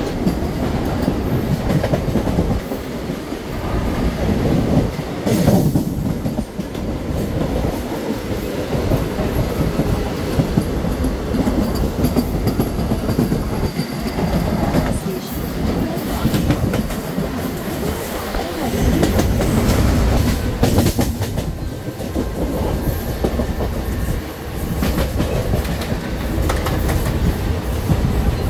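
Mumbai suburban local train, an electric multiple unit, running along the line, heard from aboard: a steady, loud rumble with the clatter of wheels over the rail joints.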